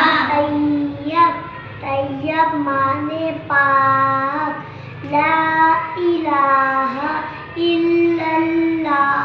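A child singing solo, a devotional song in praise of the Prophet Muhammad, in short phrases of held notes with brief breaths between them.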